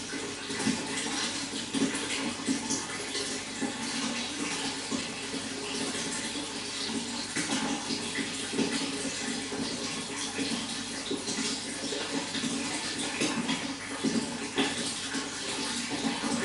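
Running water splashing and trickling steadily, a continuous rush broken by many small irregular splashes.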